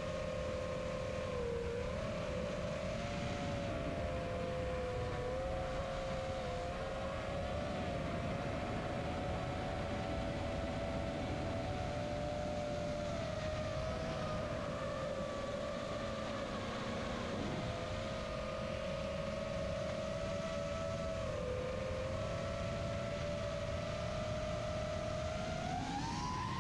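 Five-inch FPV racing quadcopter's brushless motors and Demon 5045 propellers whining in flight, the pitch wandering up and down with the throttle over a low rushing noise, then climbing sharply near the end as the quad throttles up.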